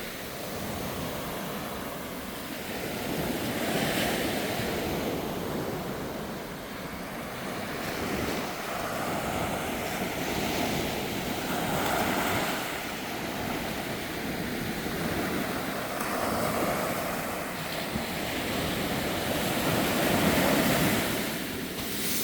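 Sea waves breaking and washing up a beach, the surf swelling and falling back about every four seconds.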